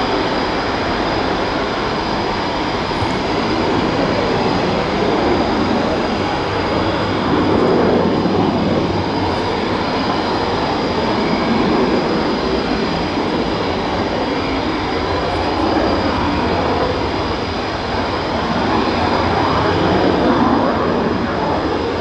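Jet aircraft engines running with a steady rushing roar and a thin, steady high whine, swelling slightly now and then.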